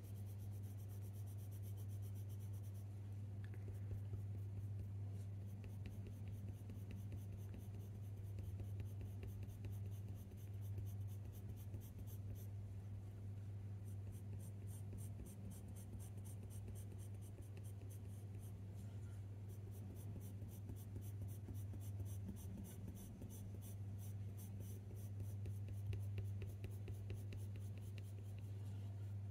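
Faber-Castell Polychromos coloured pencil scratching on hot-press watercolour paper in quick, short, repeated shading strokes, with a steady low hum underneath.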